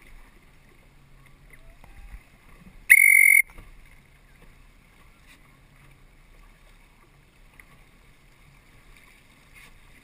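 A single short whistle blast about three seconds in: one steady high tone lasting about half a second that starts and stops sharply. Around it lie faint water and wind noise and a low hum.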